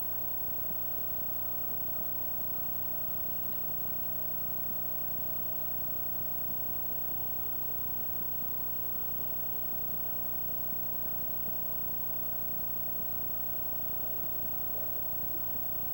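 Steady electrical hum and buzz with a constant whine over hiss, unchanging, with no distinct events.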